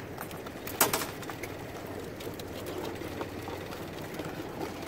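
Dungeness crabs and crabbing gear being handled: one sharp click or knock about a second in, then a few light clicks over a steady low background.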